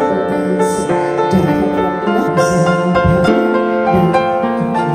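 Instrumental background music, a slow piece of held notes.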